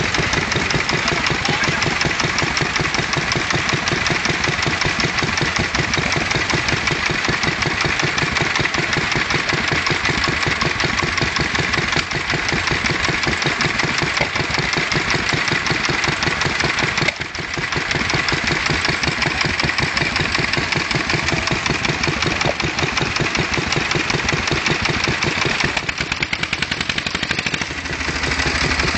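Vintage stationary engines running, a steady, rapid run of regular firing beats, with a brief dip in level just past the middle.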